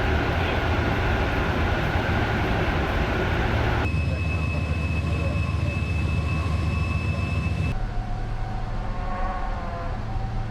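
Steady engine rumble with a low hum, in three shots that cut abruptly about four and about eight seconds in. The middle shot carries a thin, high, steady whine.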